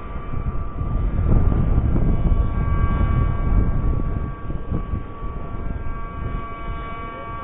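Wind buffeting the microphone in gusts, heavier in the middle and easing toward the end, with a steady high-pitched hum over it.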